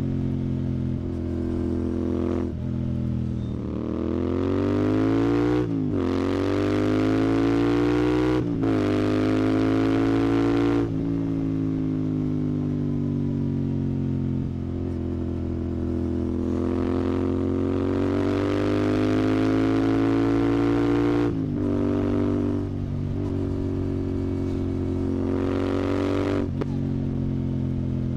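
Royal Enfield Continental GT 650's parallel-twin engine through a Red Rooster aftermarket exhaust, under way: it revs up through the gears with a rising pitch that drops at each upshift, about six, eight and a half, and eleven seconds in. It then holds a steady cruise with small throttle changes near the end.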